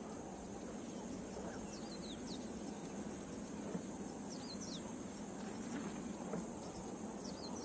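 Steady high-pitched insect drone, with a few small groups of quick, falling bird chirps about two seconds in, about four and a half seconds in and near the end, over a soft hiss of dry-bush ambience.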